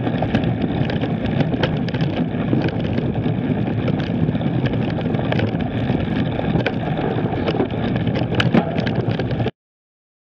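Mountain bike ridden fast over a dirt forest trail: wind buffeting the onboard camera's microphone, tyre noise, and frequent clicks and knocks as the bike rattles over bumps. The sound cuts off abruptly about nine and a half seconds in.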